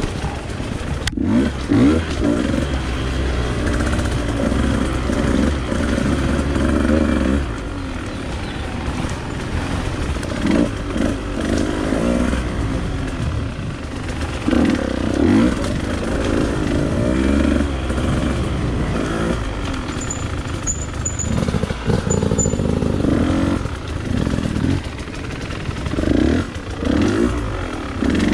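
Two-stroke Husqvarna dirt bike engine running under riding, its revs rising and falling again and again as the throttle is opened and rolled off.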